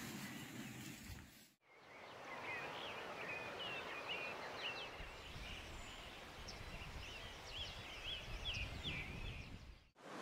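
Bacon and eggs sizzling in a frying pan for about a second and a half. Then, after a brief break, several birds singing in short, quick twittering and chirping phrases over a steady background hiss.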